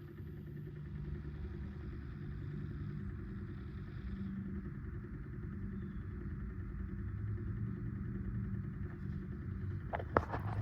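Cooling fan in an RV's fuse box running with a steady low drone and hum, making a noise the owner cannot identify. A few sharp clicks sound near the end.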